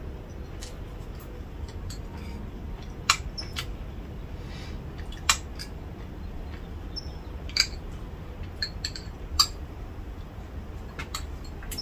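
A metal spoon clinking against a small ceramic bowl while eating, about six sharp clinks spread over the stretch, some with a short ring. A steady low rumble runs underneath.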